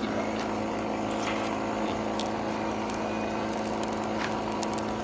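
A steady low machine hum with a few faint ticks scattered through it.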